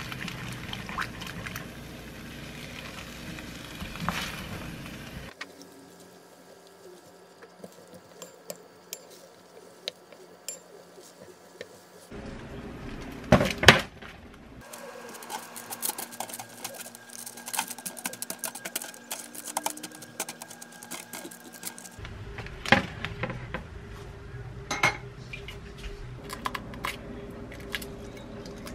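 Home cooking sounds in several short cuts. A wooden spoon stirs cabbage and sauce in a pan. Metal tongs clank against a tray while turning pieces of chicken, the loudest moment, about halfway through. Boiled eggshells crackle as they are peeled over a glass bowl of water near the end.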